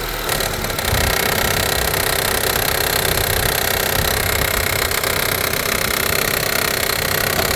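2014 Honda CR-V LX's 2.4-litre four-cylinder engine running steadily with the transmission in drive. It is a dense, even mechanical noise that gets slightly louder about a third of a second in.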